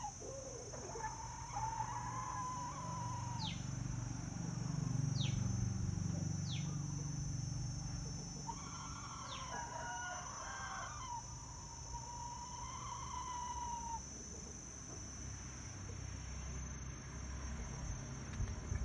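Roosters crowing: three long crows, about a second and a half in, around the middle and a little later, over a steady high whine and a few short falling chirps.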